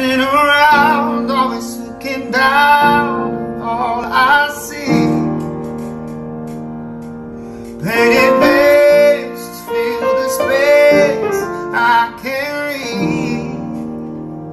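Background music: a woman singing over piano accompaniment.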